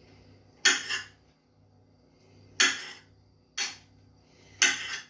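Knife blade chopping down onto a chopping board as blueberries are cut into quarters: four sharp knocks, spaced about a second apart.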